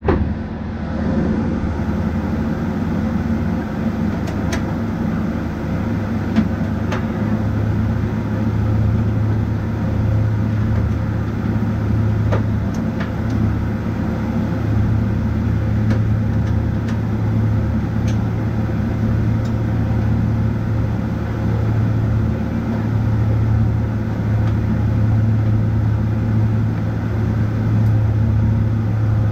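Steady low hum inside the cabin of a Boeing 777-300ER, with a few faint clicks now and then.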